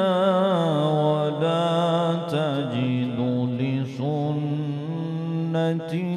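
A male qari reciting the Quran in the melodic tajweed style, drawing out long held notes with wavering, ornamented turns and pausing briefly between phrases.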